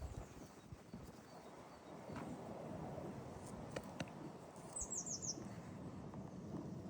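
Wild birds chirping, with a quick run of four high, falling chirps about five seconds in, over faint background noise.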